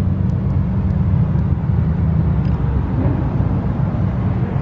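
Car engines running with a steady low rumble.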